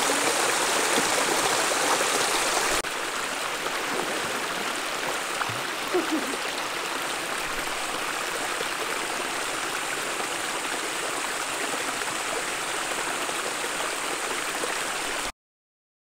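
Cascading water, a steady rushing hiss with no pauses. It drops a little in level with a sudden change about three seconds in, and stops abruptly near the end.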